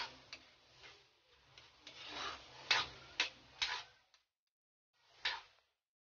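Spatula scraping and clicking against a pan while stirring sautéing chicken liver, with several sharp knocks in the first few seconds. The sound cuts out to dead silence twice near the end, broken by one more click.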